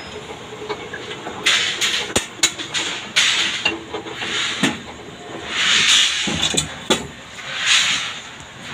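Rebar bending machine working steel bars into stirrups: a short hissing burst recurs about every two seconds as the bending disc turns, with sharp metal clanks of the bars in between.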